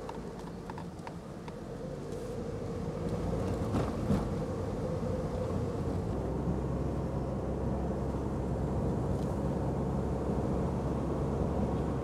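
Mazda NC Roadster's four-cylinder engine running steadily with road noise, heard from the open-top cabin while driving slowly. The sound grows louder over the first few seconds, then holds steady.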